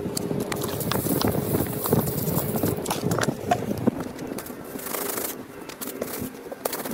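Irregular knocks, taps and scuffs of a metal cup cutter and turf plug being handled on a putting-green hole. A shoe presses the turf down near the end.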